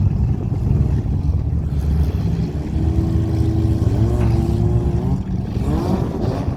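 Several demolition derby car engines running together with a heavy rumble, one revving up about four seconds in and again near the end.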